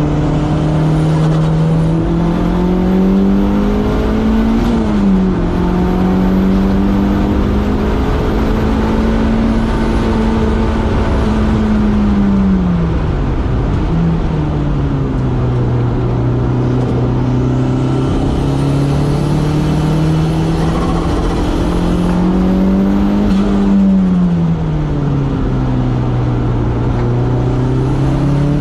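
Turbocharged Toyota 3S-GTE four-cylinder in a Toyota MR2 AW11, heard onboard at speed on a track: the engine pulls up through the revs, holds, then drops sharply for shifts and braking, several times over. A faint high whistle rides on top while it is under throttle.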